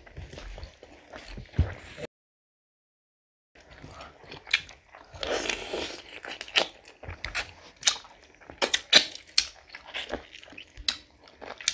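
Close-miked eating sounds: chewing, wet lip smacks and mouth clicks as rice, curry and fish are eaten by hand. The sound cuts out completely for about a second and a half near 2 s in, then the clicks come thick and fast towards the end.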